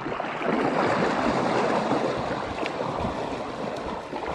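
Water splashing and churning as a person plunges into a muddy channel and wades quickly through it. Loudest from about half a second to two seconds in, then gradually easing.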